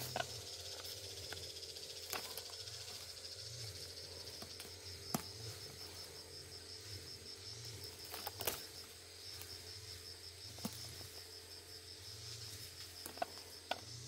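Insects trilling steadily in summer woodland, a high, fast, even pulsing. A few sharp clicks or snaps stand out now and then.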